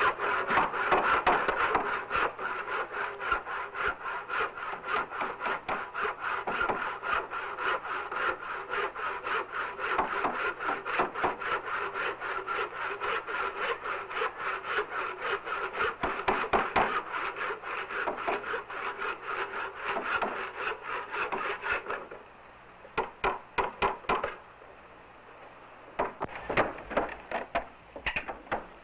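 Hand tools working wood: a fast, continuous rasping scrape for about twenty-two seconds, then short groups of sharp taps with a brief lull between them.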